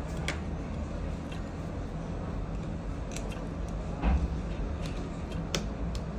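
Scattered small clicks and taps of a smartphone being put back together by hand: flex connectors pressed onto the board and a precision screwdriver working on screws. A duller knock comes about four seconds in, over a steady low hum.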